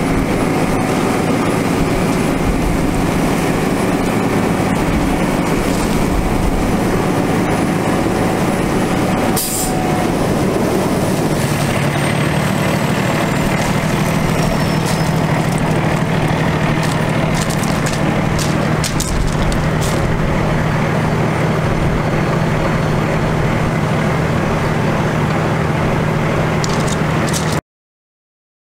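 Water truck's Cummins ISC diesel engine running steadily, driving its PTO spray pump, with the hiss of a water jet from the rear spray nozzle. The sound stops abruptly near the end.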